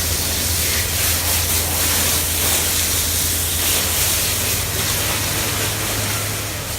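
Steady rushing hiss with a low hum beneath it, unbroken throughout.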